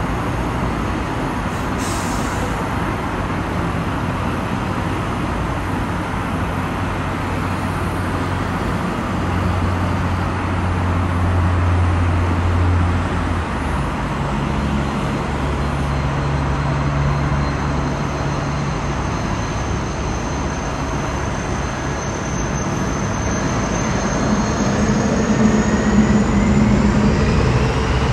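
Distant jet engines of an Airbus A330-300 airliner running steadily as it taxis, a deep steady noise with a low hum underneath. In the last few seconds a whine rises in pitch as the engines spool up.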